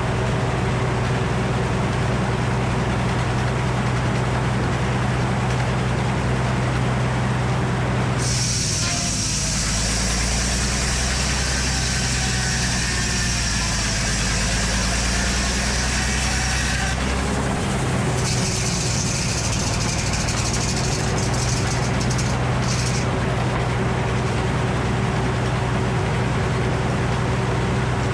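Engine-driven Frick circular sawmill running steadily, with a marked change in its sound for about nine seconds in the middle before it settles back.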